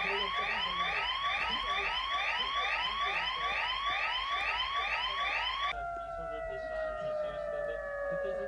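Electronic alert siren in a rapid yelp: a rising sweep repeated about three times a second. About two-thirds of the way in it switches to a steady tone that slowly glides down in pitch.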